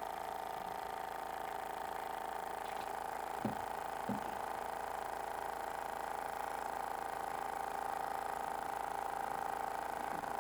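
Small DC motor of a cardboard mini washing machine running steadily with a constant hum. Two soft knocks come about three and a half and four seconds in.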